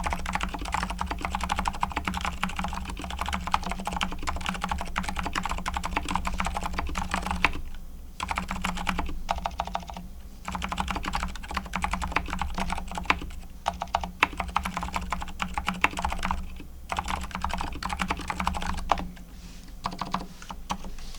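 Fast, continuous typing on a Logitech K855 keyboard with TTC silent Moon White switches (factory-lubed), stock keycaps and grease-lubed stock stabilizers: a dense patter of soft keystrokes with a few short breaks, thinning out near the end. A steady low hum runs underneath.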